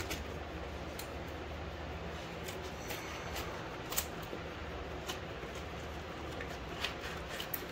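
Scissors snipping through the packing tape and brown paper wrapping of a cardboard parcel, with scattered clicks and rustles, the loudest about four seconds in, over a steady low hum.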